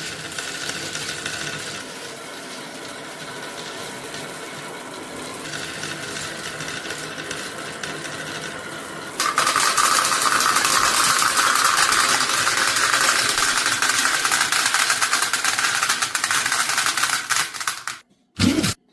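Marbles rolling and clattering along a marble-run track, a steady rattle of many small clicks. About nine seconds in it suddenly gets louder and brighter, then cuts off abruptly near the end.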